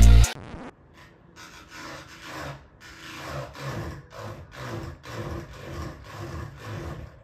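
A cat's claws scratching at a small appliance in repeated rasping strokes, about two or three a second.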